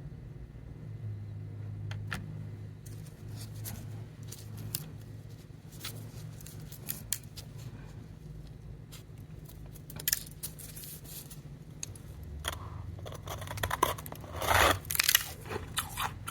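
Ice being eaten close to the microphone: scattered sharp clicks and cracks of ice, then loud crunching of ice being bitten and chewed in the last few seconds, over a low steady hum.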